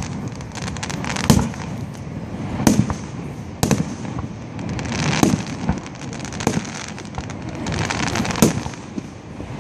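Aerial firework shells bursting in a steady series, a sharp bang every second or so, with crackling between the bangs.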